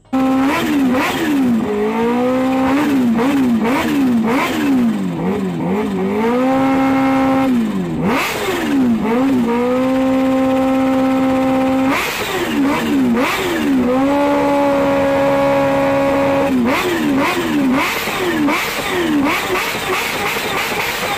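Supercharged inline-four engine of a Kawasaki Ninja H2R being free-revved while standing still: quick repeated throttle blips, with the revs held high and steady three times for about two seconds each.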